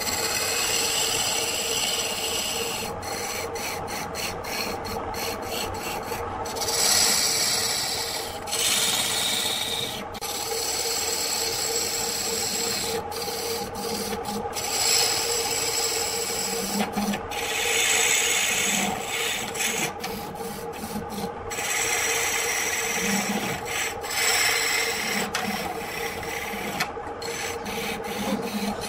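A turning tool cutting a spinning wooden blank on a lathe: a continuous rasping scrape as shavings peel off, swelling louder in several surges of a second or two, over the steady hum of the lathe's electric motor.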